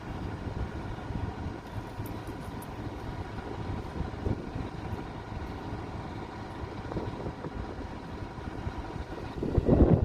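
Engine idling steadily, with wind buffeting the microphone and a louder gust near the end.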